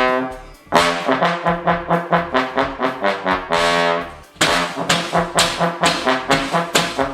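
Brass band music: a fast run of short, evenly repeated notes, about four or five a second. The music breaks off briefly just after it starts. About three and a half seconds in, one note is held and fades, and the quick repeated notes then come back.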